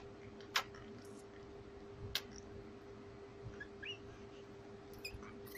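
Faint sucking clicks from a newborn baby sucking on its hand, three separate clicks with a couple of tiny high squeaks in between, over a steady low hum.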